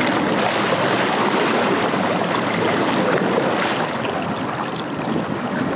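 Seawater rushing and splashing close up around a roosterfish held in the water at a boat's side to revive it. The noise is steady and eases a little about four seconds in.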